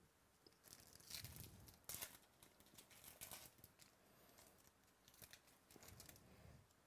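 Faint tearing and crinkling of a foil trading-card pack wrapper being ripped open by hand, in a series of short rips and rustles, strongest about a second in.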